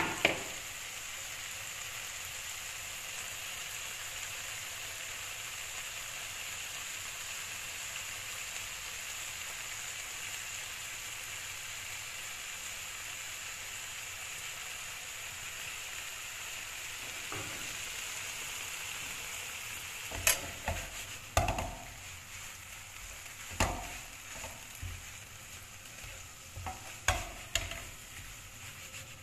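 Shrimp sizzling steadily in hot oil in a wide nonstick frying pan. About two-thirds of the way in, a spatula starts stirring them, with scrapes and knocks against the pan.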